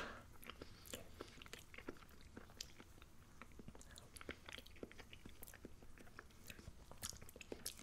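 Faint chewing of a mouthful of hot pot food, with scattered soft clicks and mouth sounds.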